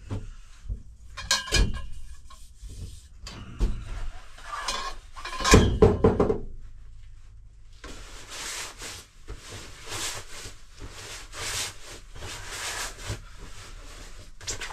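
A folding camp bed being packed by hand: knocks and clatter as its frame and sticks are handled, loudest about halfway through, then a stretch of rustling as the fabric is pushed into its carry bag.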